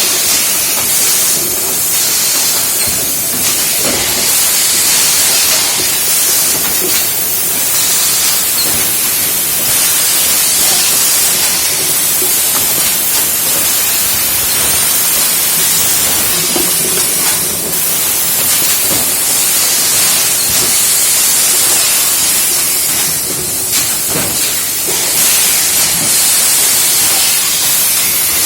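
PET bottle blow-moulding machine running: a loud, steady hiss of compressed air, with a few short clicks and knocks now and then.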